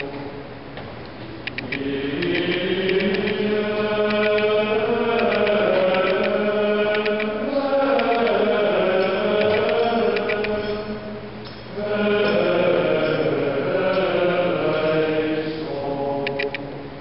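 Voices chanting Gregorian plainchant of the Latin Mass, a sung melody in long held phrases that breaks off briefly about eleven seconds in.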